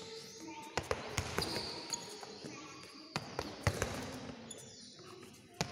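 Two basketballs being dribbled on a hard court floor: sharp bounces at an uneven rhythm, the two balls out of step.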